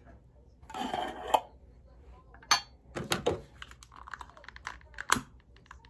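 Clicks and light knocks of a glass jar and its lid being handled, with a run of small ticks in the second half and two sharper clicks, about two and a half seconds in and near the end. A short breathy rustle comes about a second in.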